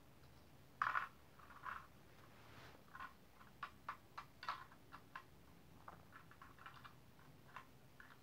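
Faint, irregular light clicks and taps, a dozen or so scattered over several seconds, with two slightly louder ones about a second in.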